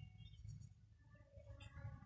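Near silence: a faint low rumble, with a faint pitched call beginning about one and a half seconds in.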